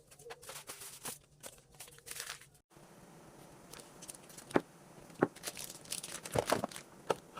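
Plastic crinkling and rustling, then after a short break several sharp clicks and taps, the kind of sound made when handling food packaging.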